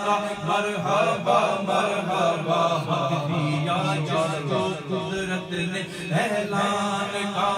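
A man singing an Urdu manqabat into a microphone in long, held, gliding melodic lines, over a steady low drone.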